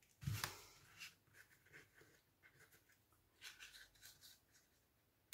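Faint rustling and sliding of paper and card stock as die-cut paper pieces are moved and pressed onto a card, with a brief scrape about a third of a second in and a few light rustles around three and a half to four seconds in.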